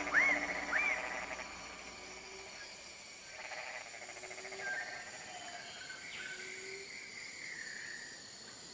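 Tropical forest ambience: a bird gives quick whistled calls, each rising then falling, in the first second. Fainter scattered whistles and calls follow over a soft steady hiss.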